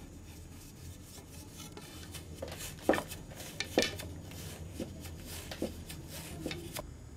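Wooden knocks and clicks from a hand loom's shuttle and sword stick, with the soft rubbing of fine warp threads as a weaver opens the shed and passes the weft. Two sharper knocks come about three and four seconds in, then lighter taps at irregular intervals.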